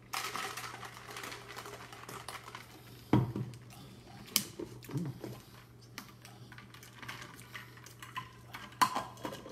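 Dishes and utensils being handled: a scraping, rustling clatter at first, then light clinks and three sharp knocks, about three, four and a half and nine seconds in.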